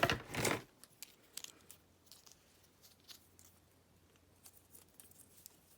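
Small tools being handled on a table: a short rustling scrape in the first half second, then scattered light clicks and taps.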